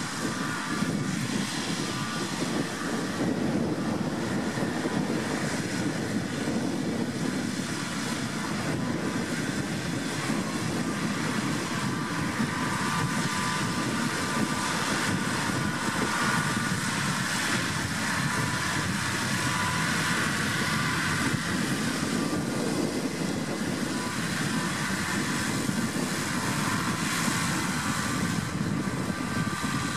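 McCormick MC135 tractor's six-cylinder diesel engine running steadily under load as it pulls a cultivator through stubble, with a faint high whine over the engine note.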